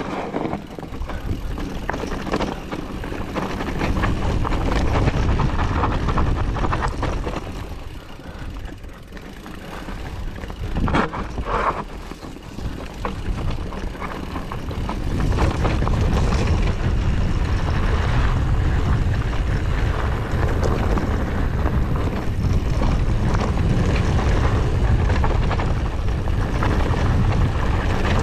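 Wind rumbling on the microphone, with tyre and rattle noise from a mountain bike riding downhill over rough trail. The noise drops for a few seconds midway, where a couple of sharp knocks come through, then stays loud.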